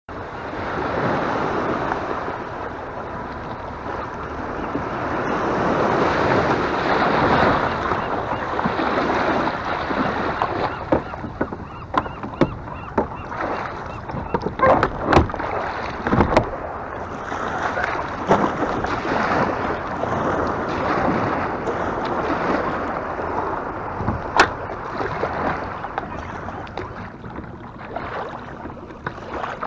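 Waves washing in the shallows and wind buffeting the microphone, with a few sharp knocks against the plastic hull of a Hobie Revolution kayak as it is boarded in the middle.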